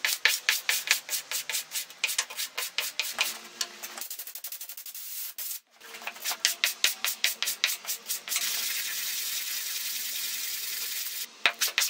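Wooden cylinder block being flat-sanded by hand, rubbed back and forth on a sheet of sandpaper laid on a flat table. It makes quick rasping strokes, about four or five a second, and breaks off briefly near the middle. Later there are a few seconds of continuous, even rubbing, and the strokes start again just before the end.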